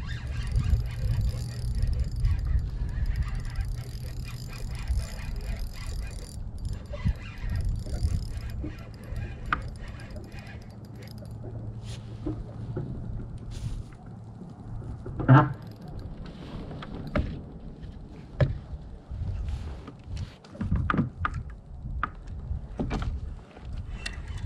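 Wind rumbling on the microphone for roughly the first ten seconds, then scattered short, sharp knocks while a fish is reeled in from a kayak; the loudest knock comes about fifteen seconds in.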